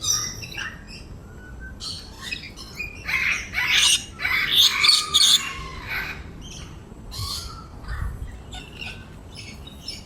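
Many birds squawking and chirping at once, short shrill calls overlapping, busiest and loudest through the middle.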